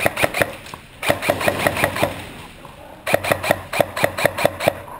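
Airsoft gun firing in three bursts of rapid, evenly spaced shots, about six a second. The bursts come at the start, about a second in, and about three seconds in, the last one longest.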